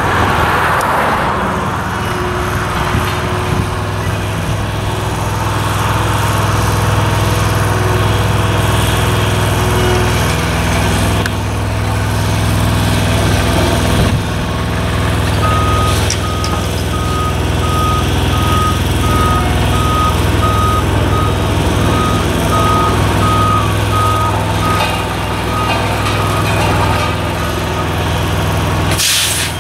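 Diesel engines of a dump truck and an asphalt roller running steadily. About halfway through, a vehicle's backup alarm starts beeping in an even rhythm and goes on for about ten seconds.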